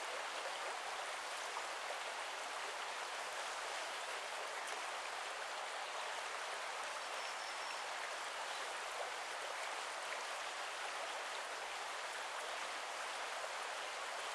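Small forest brook running: a steady, even rush of flowing water.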